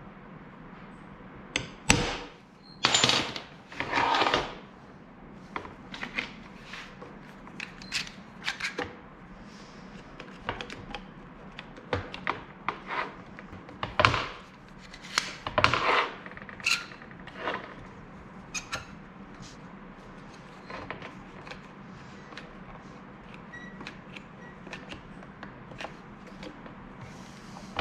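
Hand tools, bolts and a wooden block being handled at a workbench: irregular clicks, knocks and clatter, with a few louder knocks and scrapes.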